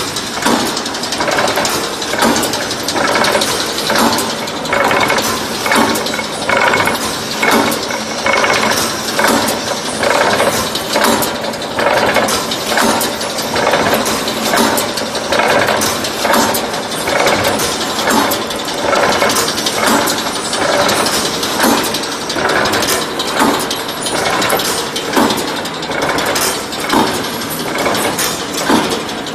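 Automatic brickforce mesh welding machine running: a continuous mechanical clatter with a regular beat of clanks as it feeds wire and welds the mesh.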